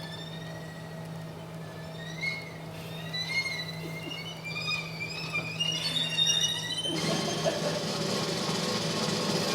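Soundtrack of high sliding tones over a steady low hum, growing fuller and louder about seven seconds in.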